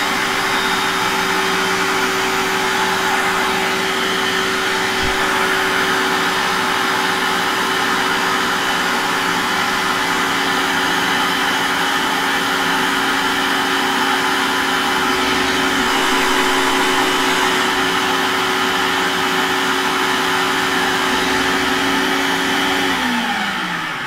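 Electric food processor running steadily, its blade grinding almond flour and powdered sugar into a finer mix. About a second before the end the motor is switched off and spins down, its pitch falling.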